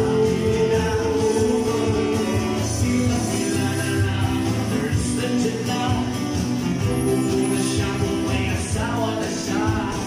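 Live band music: male voices singing over acoustic guitar and keyboard.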